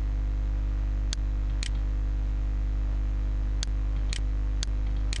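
Computer mouse clicking: two clicks about a second in, then four more near the end, about half a second apart. Under them runs a steady low electrical hum on the microphone.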